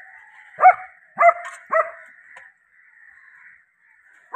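German Shepherd barking, three sharp barks in quick succession in the first two seconds, then a pause of about two seconds.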